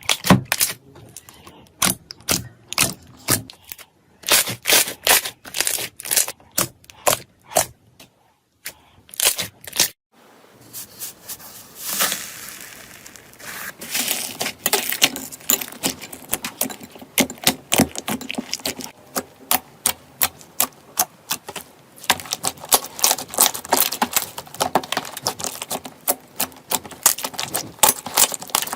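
Slime being pressed, poked and stretched by hand, making runs of sharp pops, clicks and crackles, with a few short pauses between clips.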